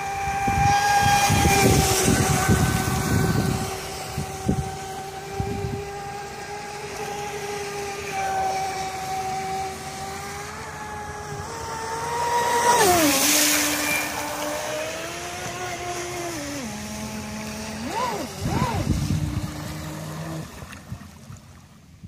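Traxxas Spartan RC speedboat's brushless motor on 6S running at speed: a steady high whine that steps down and swoops back up as the throttle changes. Wind buffets the microphone, and a louder rushing noise comes about thirteen seconds in as the boat passes close; the sound fades out near the end.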